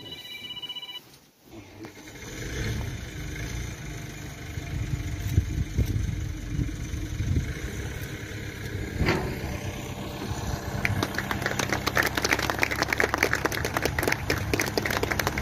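Backhoe loader's diesel engine running and building up, with a dense clatter of clicks over it in the last few seconds.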